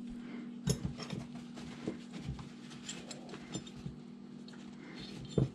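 Old hand tools being handled and set down: scattered light clinks and knocks of metal wrenches, with a louder knock near the end, over a steady low hum.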